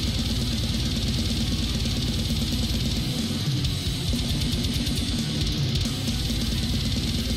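Symphonic death metal: distorted guitars and orchestral parts piled on top of each other over a relentless, very fast blast beat on the drums.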